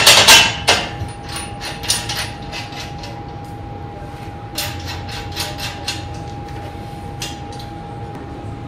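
Metal clinks and taps of parts being handled and fitted on a welded steel frame: a cluster of loud knocks in the first second, then scattered lighter clicks, over a faint steady whine.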